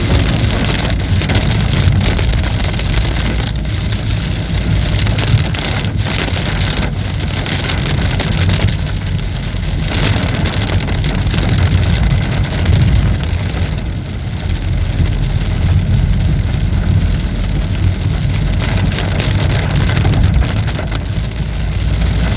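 Heavy monsoon rain on a moving car, a steady rush of rain over a strong low road and engine rumble, with scattered sharp taps.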